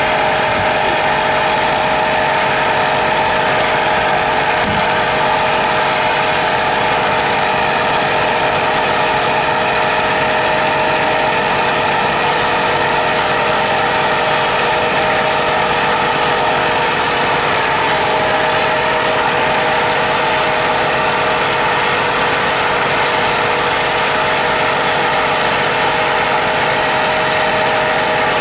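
A machine running steadily with a constant, unchanging hum at a fixed pitch, like a motor or engine left running.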